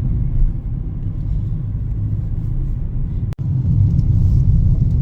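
Car's engine and road noise heard from inside the cabin while driving: a steady low rumble, broken by a momentary dropout a little past three seconds in.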